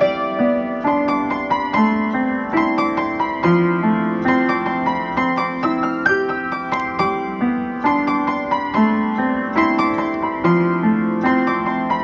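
Background piano music: a gentle melody of evenly flowing notes.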